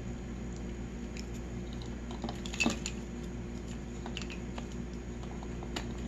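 Light plastic clicks and taps of a screwdriver and fingers prying a micro switch out of a dishwasher's plastic door-latch housing, a handful of small clicks, the loudest about two and a half seconds in, over a steady low hum.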